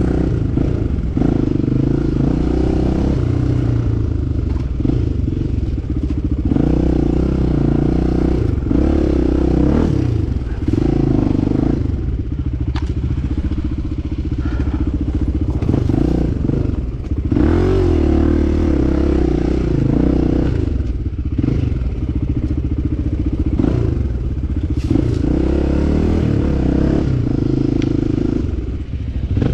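Enduro motorcycle engine running under way off-road, its revs rising and falling again and again as the rider works the throttle, with scattered clattering knocks from the bike over rough ground.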